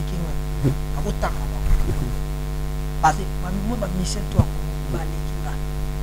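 Steady electrical mains hum with a stack of buzzing overtones, with a man's voice faintly audible underneath.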